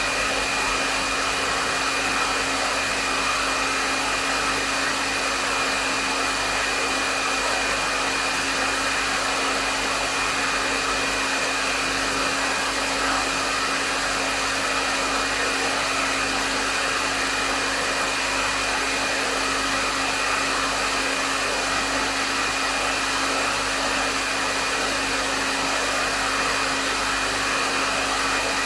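Hair dryer running steadily at medium setting: a continuous rush of airflow with a steady motor whine underneath, unchanging throughout.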